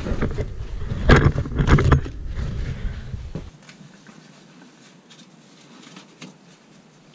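Low rumbling handling noise with knocks and rustles, cutting off suddenly about three and a half seconds in, after which only faint scattered clicks remain.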